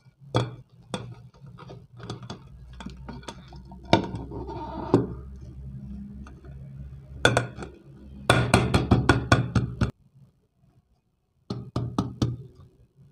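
Metal knocks and clinks from an upturned aluminium tin and ceramic plate being handled and tapped to turn out the set halwa. Scattered knocks early on, a quick run of taps about eight seconds in, then a few more near the end.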